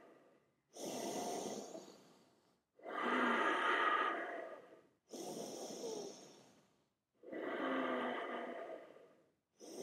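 A person breathing slowly and deeply during yoga practice. There are about five long audible breaths, in and out in turn, each lasting one to two seconds with short silent gaps between them.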